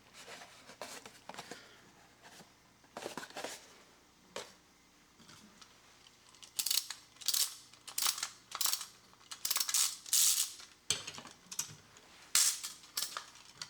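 Clockwork mainspring of a Hong Kong-made tin wind-up swivel robot being wound by its key: after some light handling clicks, repeated bursts of ratcheting clicks, one per twist of the key, begin about halfway in with a short break near the end. The spring seems well run down, giving little resistance yet.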